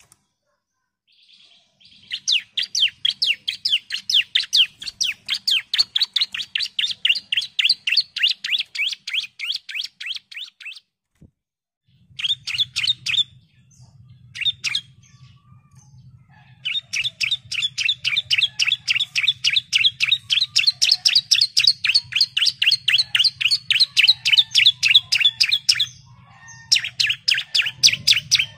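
Bar-winged prinia (ciblek) calling in long, rapid runs of sharp chip notes, about four or five a second. One run lasts from about 2 s to 11 s, a short burst comes around 12 s, and a long run follows from about 17 s, broken briefly near 26 s.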